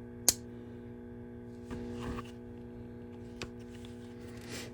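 A single sharp click a moment in, then a short rustle of handling, a faint tick and another rustle, over a steady low hum.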